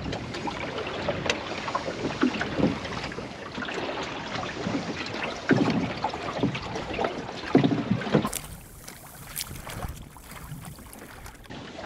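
Water slapping and lapping against the hull of a small wooden sailing dinghy under way, with irregular knocks and rustles from lines and gear in the boat. After about eight seconds it changes to a quieter, hissier wash of light wind and water.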